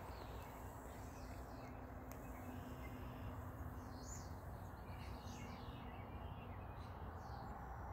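Birds chirping: several short, high, falling calls scattered over a steady low outdoor rumble.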